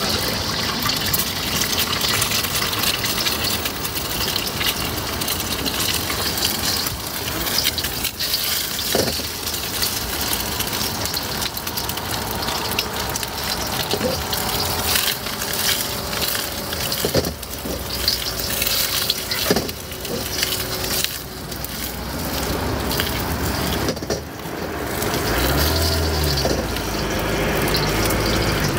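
Steady sizzle of food frying on a hot plate, broken by a few sharp knocks of utensils. A vehicle engine idles in near the end.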